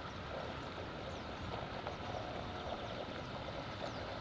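Steady outdoor ambience of a hillside city: an even low hum and hiss, with a few faint high chirps now and then.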